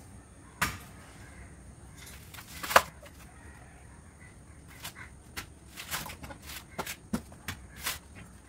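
A coconut being struck to crack it open: a sharp knock about half a second in, a loud hit near three seconds, then a run of lighter knocks and clicks.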